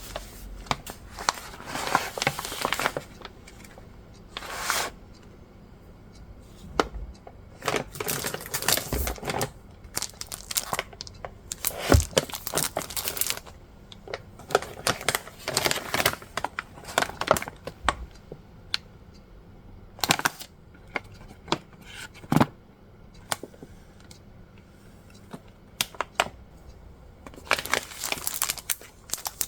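Paper and plastic packaging rustled, crinkled and torn open by hand, in irregular bursts with scattered sharp clicks and taps.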